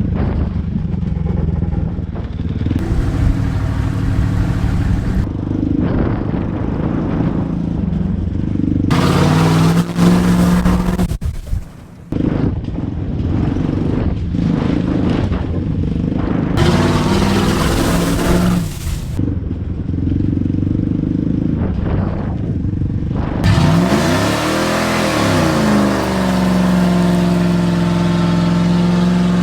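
1998 Dodge Ram 2500 pickup's engine pulling the truck along an off-road trail, its pitch rising and falling with the throttle, with one clear rev up and back down near the end. Stretches of rushing noise from the truck's movement come and go over the engine.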